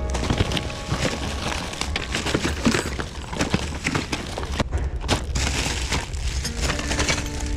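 Plastic bags and cardboard boxes of merchandise rustling and crinkling as hands rummage through a bin of packaged items, with many quick crackles and light knocks.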